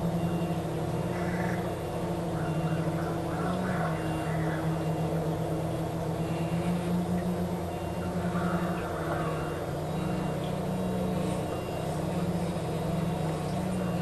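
Four brushless motors and propellers of an FPV quadcopter humming steadily, the pitch wavering a little with throttle changes as the quad descends.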